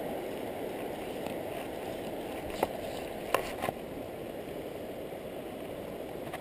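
Steady rush of stream water flowing around the wader, with three short sharp clicks about two and a half to four seconds in.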